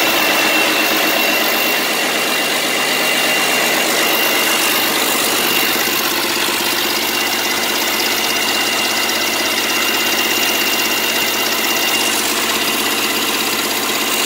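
1995 Mack E7-300 turbocharged inline-six diesel engine with a mechanical fuel pump, running steadily on a test stand out of the truck. A thin, steady high-pitched whine sits over the engine clatter, with no change in speed.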